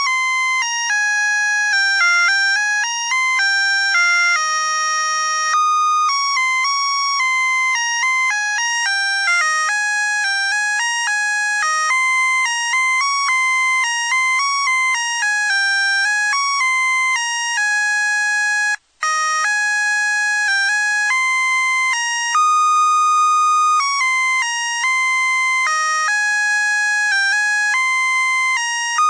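Musical Christmas light string's sound chip playing a tinny electronic beeping melody, note after note in quick steps, with a brief break about nineteen seconds in.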